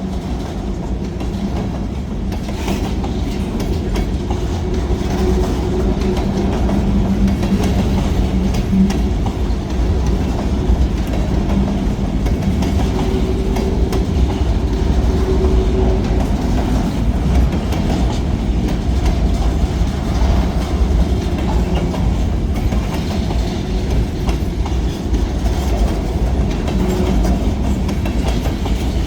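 Freight train rolling past: a steady low rumble of wheels on rail, with faint rail clicks and a low steady hum that fades about nine seconds in.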